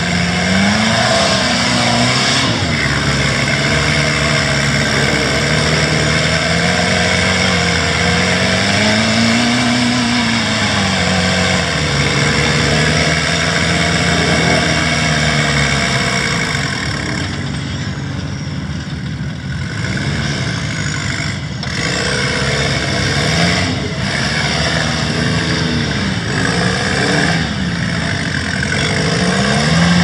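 Rock-crawling buggy's engine revving up and down in repeated swells as it crawls up a rock ledge, easing off for a few seconds past the middle before picking up again.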